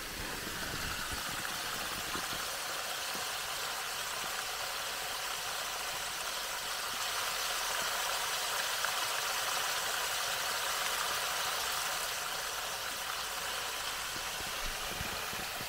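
Muddy stormwater runoff pouring through a gap in a small concrete-block dam wall and splashing into the gully below: a steady rushing splash, a little louder about halfway through.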